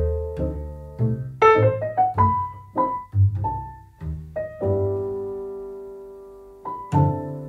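Solo piano background music, slow and gentle, with single notes and chords left to ring out, one of them held for about two seconds in the middle.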